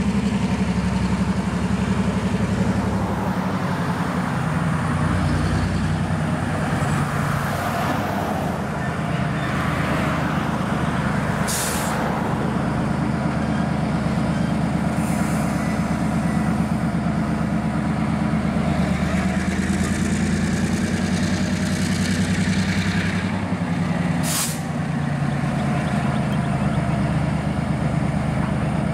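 Diesel switcher locomotive engines running steadily. Two short hisses of released air come through, one near the middle and one near the end.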